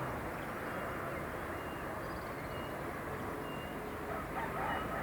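City ambience: a steady hum of distant traffic, with faint short high bird chirps about once a second over it.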